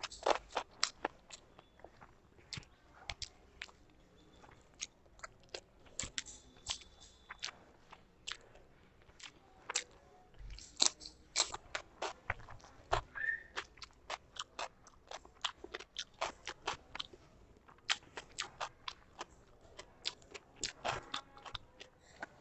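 Close-up chewing and lip-smacking of a person eating rice and curry by hand, a long irregular run of wet clicks.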